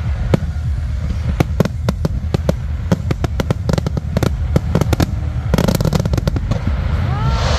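Fireworks bursting: a steady run of sharp cracks and bangs over a constant low rumble, thickening into a dense crackling flurry about five and a half seconds in.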